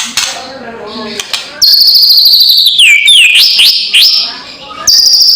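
White-rumped shama calling loudly: a scratchy, clicking chatter for about the first second and a half. Then clear whistles, a long high note sliding slowly down followed by quick up-and-down sweeps, with the long high note starting again near the end.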